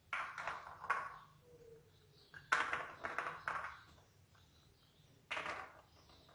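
Peeled almonds clicking and rattling against a small glass bowl and a plastic tray as they are picked out by hand and laid down, in three short bursts.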